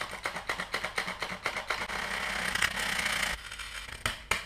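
Metal flour sifter worked by hand to sift flour for pancake batter: a fast, even run of rasping scrapes and clicks, about five a second, blurring into a steady rasp for a moment before slower, sharper clicks near the end.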